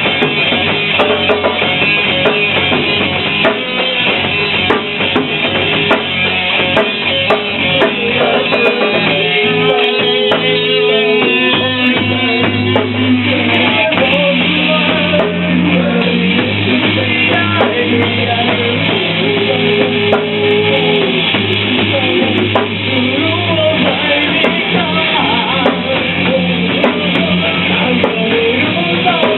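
Band music with guitar and a drum kit playing steadily, with sustained notes over a bass line.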